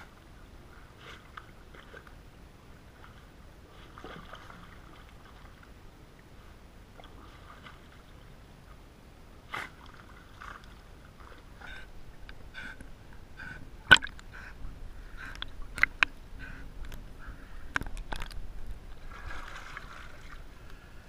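Swimming-pool water sloshing and splashing close to the microphone at the waterline. It is quiet at first, then a run of sharper splashes and knocks comes in the second half, the loudest about two-thirds of the way through.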